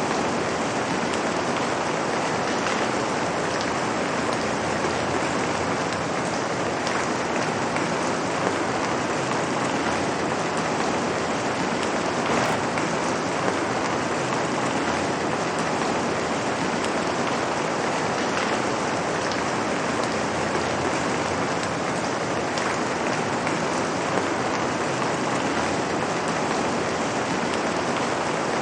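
Light rain falling on pavement: a steady, even hiss of drops with an occasional distinct drip.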